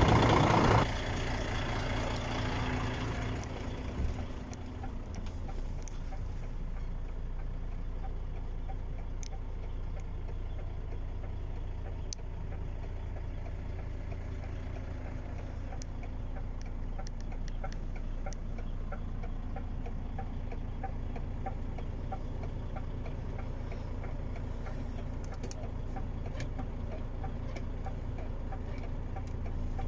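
DAF XF 105.410 truck's PACCAR MX 12.9-litre straight-six diesel idling steadily in neutral: a low hum, loud for the first second from the open engine bay, then quieter as heard inside the cab, with a few faint ticks.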